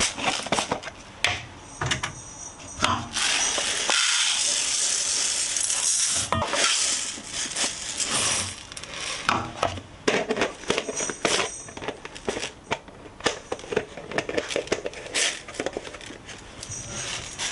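Dry rice grains poured into a stainless steel mixing bowl: a continuous rattling hiss for about three seconds, then shorter pours and scattered clicks as grains land in the metal bowl and a plastic measuring cup is handled.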